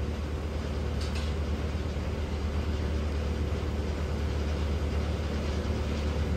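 A passenger boat's engine running steadily, a low drone heard from inside the cabin with water rushing along the hull, and a brief hiss about a second in.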